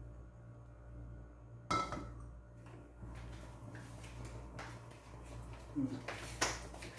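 Aluminium wok knocking against the gas hob's metal grate as it is set on the burner: a sharp clank about two seconds in and two more near the end, over a steady low hum.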